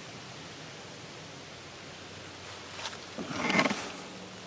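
Quiet forest ambience: a faint steady hiss with no birdsong, then about three seconds in a short louder noise.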